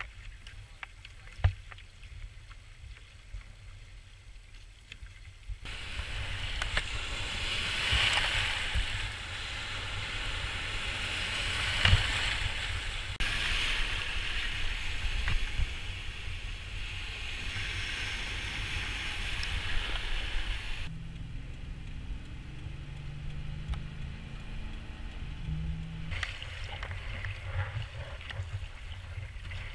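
Wind rumbling on the microphone, then waves breaking and washing around a kayak in surf for most of the middle stretch. A low steady hum comes in for several seconds afterwards, then choppy water slaps against the kayak hull.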